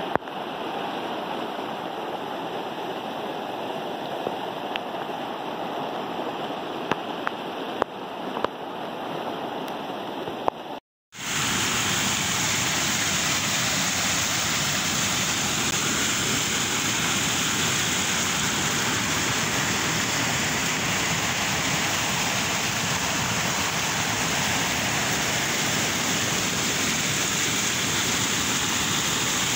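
Muddy floodwater rushing over a flooded stream crossing, with a few sharp ticks. After a short break about 11 seconds in, a louder, steady rush of floodwater pours over a small dam's spillway: the reservoir is full and overflowing.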